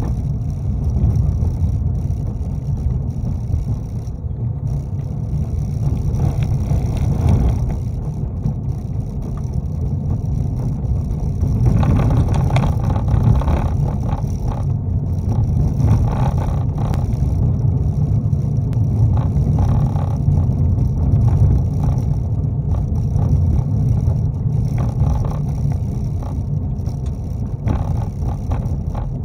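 Car driving on a rough, narrow old road, heard from inside the cabin: a steady low rumble of tyres and engine. From about twelve seconds in, for several seconds, the noise turns louder and grittier as the tyres cross a gravelly stretch of road.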